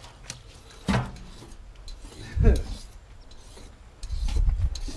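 Crappie shifting and rubbing against one another and the stainless steel box as a hand moves among them, with a few sharp knocks. A low rumble comes in near the end.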